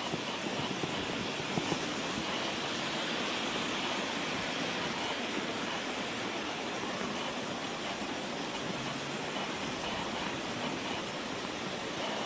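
Steady rushing noise of water, even and unbroken, with a few faint ticks about a second and a half in.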